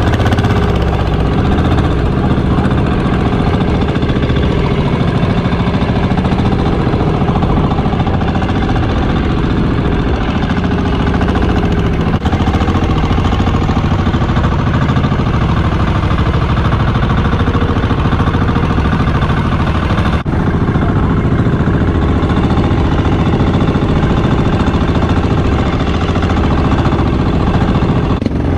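Outrigger fishing boat's engine running steadily while the boat is under way, a loud, even, knocking drone heard from on board.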